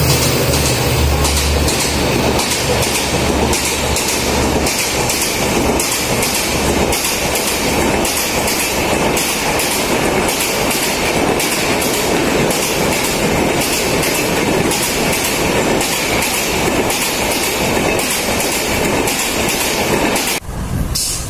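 Mumbai suburban electric multiple-unit train running at speed, heard from on board: a steady rumble with repeated clacks of the wheels over the rail joints. The noise drops suddenly just before the end.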